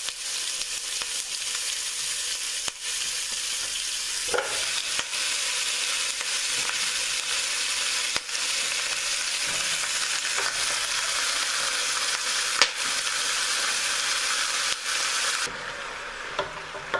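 Raw oxtail pieces sizzling and frying as they go into hot oil in a large pot, with scattered clicks and knocks as pieces land. Near the end a wooden spoon moves the pieces and the sizzle drops away sharply.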